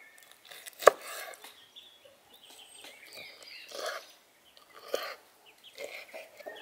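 Kitchen knife slicing raw lamb liver and knocking on a wooden cutting board: a sharp knock about a second in, another near five seconds, and softer cutting sounds between. Birds chirp and call in the background.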